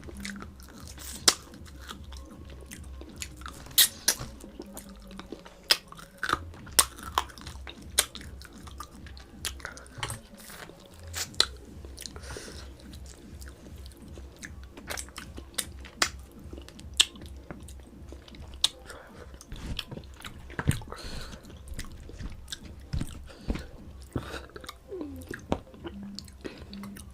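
Close-up mouth sounds of a person chewing and eating rice with mutton curry, with many irregular sharp clicks of the mouth and teeth.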